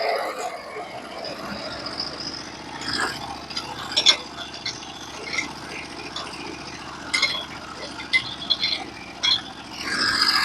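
Portable bandsaw sawmill's engine running steadily at low speed while the saw head is moved and lowered, with scattered clicks and knocks from the carriage and height mechanism. Near the end the sound swells as the next cut begins.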